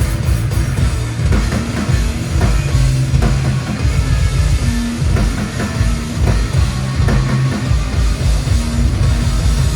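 Rock band playing loud and live during a sound check: distorted electric guitar, bass and a busy drum kit.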